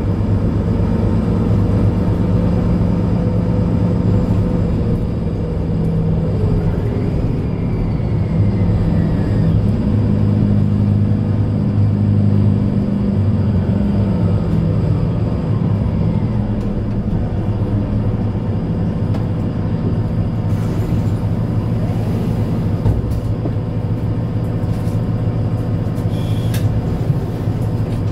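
Mercedes-Benz Citaro C2 Ü Hybrid city bus's diesel engine idling steadily with the bus at a standstill, heard from inside the passenger cabin.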